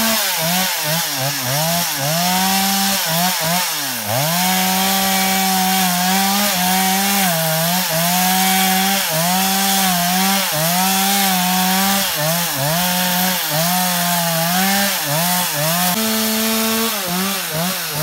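Two-stroke chainsaw running at high revs while cutting through brush. Its note dips again and again as the chain bogs down in the wood, then picks back up.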